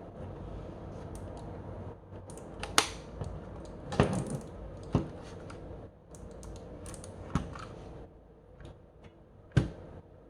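Typing on a Keychron K1 SE low-profile mechanical keyboard: irregular key clicks, with a few louder strokes standing out.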